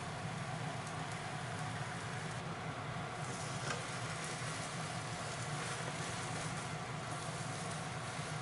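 Beaten egg sizzling in a hot rectangular tamagoyaki pan as it is poured in and rolled up with chopsticks, over a steady low hum, with a faint click about halfway through.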